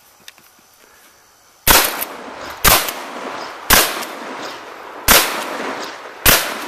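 A rapid string of five gunshots about a second apart, each sharp crack followed by a short decaying echo.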